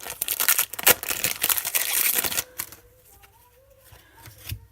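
Trading cards and their foil pack wrapper being handled: a dense run of rustling, crinkling and clicking that stops about halfway through.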